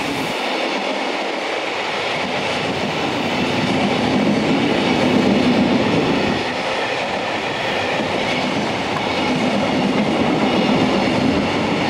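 Container flatcars of a freight train passing close by, their wheels running steadily over the rails.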